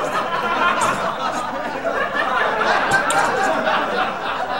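Many voices chattering and laughing together at once, a crowd's steady mixed babble with chuckles running through it.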